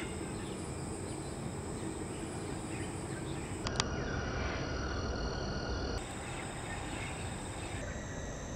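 Outdoor field ambience: a steady high insect drone over a low rumble of background noise, with a single sharp click about four seconds in.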